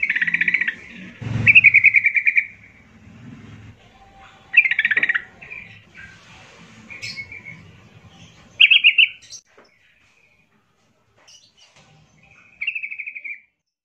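Yellow-vented bulbul singing: five short bubbling, chattering phrases a few seconds apart, with a dull knock about a second in.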